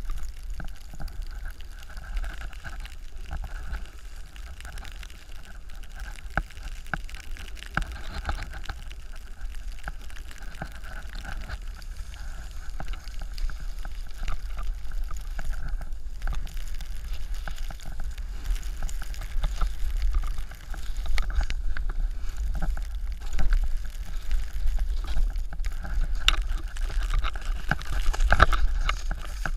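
Snowboard sliding and scraping over groomed snow, with wind buffeting the action camera's microphone as a steady low rumble under the hiss of the board. The scrapes get louder near the end.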